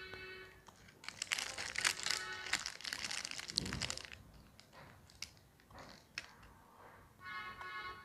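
Foil and paper wrapper of a chocolate being crinkled and peeled open by hand, loudest in the first half, then lighter rustles. Brief steady tones sound at the start and again near the end.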